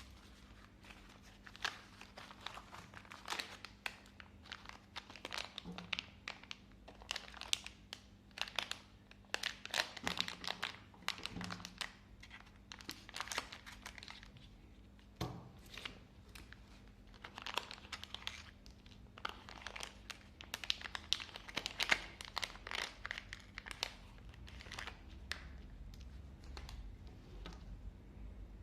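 Packaging crinkling and crackling in irregular bursts as it is handled and torn open, with a few soft knocks. The crackling is densest in two stretches and thins out near the end.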